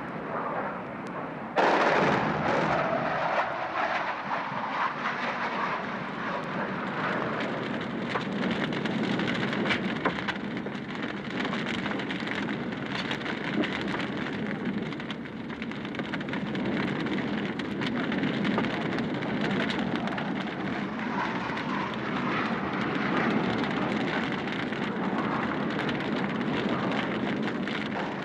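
Airplane engine noise: a steady, even rumble without a clear pitch, which jumps suddenly louder about two seconds in and then holds steady.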